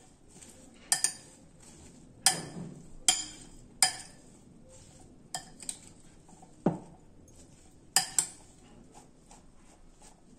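A salad being tossed by hand in a glass mixing bowl: faint rustling of leaves and vegetables, with about nine sharp clinks and knocks against the glass at irregular intervals, one duller knock about two-thirds of the way through.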